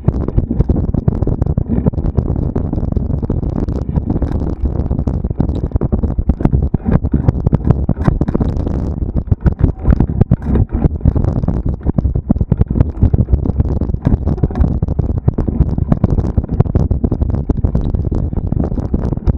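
Wind buffeting the microphone over a steady low rumble packed with irregular knocks and rattles, as from a mountain bike ridden fast over rough trail.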